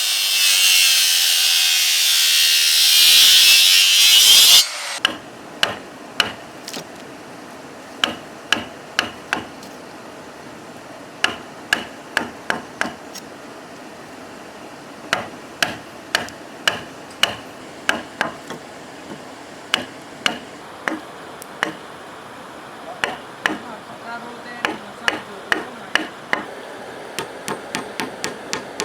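A saw cutting through wood with a steady noise that stops suddenly about four and a half seconds in. Then a hammer drives nails into wood in irregular runs of sharp knocks, the strikes coming faster near the end.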